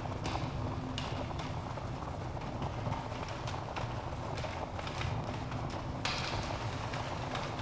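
Wood fire in a fireplace crackling: irregular pops and snaps over a steady low rumble of burning logs, with a sharper snap about six seconds in.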